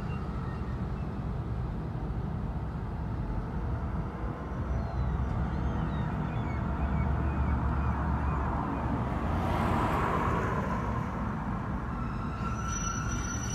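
Diesel freight locomotive's engine running with a steady low rumble, while a car drives past close by, its tyre noise swelling and fading about ten seconds in.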